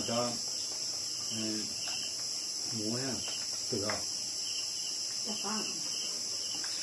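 Steady, high-pitched chorus of night insects, unbroken throughout. Brief snatches of quiet voices from the diners come in over it a few times.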